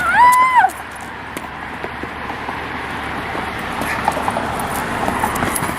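Road traffic: a car driving past on the street, its tyre and engine noise swelling gradually, with no horn sounding. A brief shout opens it.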